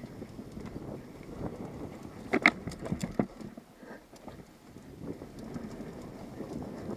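Mountain bike running fast downhill on a dirt trail: steady tyre rumble and wind on the microphone, with a short burst of sharp clattering hits about two and a half seconds in, from the bike crossing rough ground.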